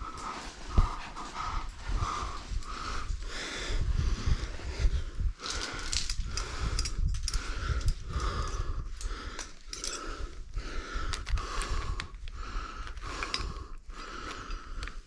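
A climber's hard, rhythmic breathing while working up a rock chimney, over a low rumble of wind or rubbing on the microphone.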